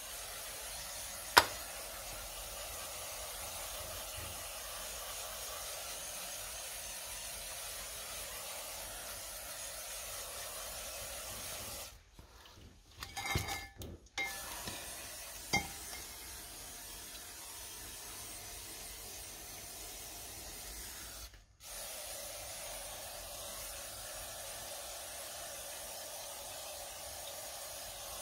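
Aerosol brake cleaner spraying in a steady hiss onto drum-brake shoes, springs and backing plate, washing off brake dust. A single sharp click comes about a second and a half in, and the hiss breaks off briefly twice, with a few light clinks in the middle.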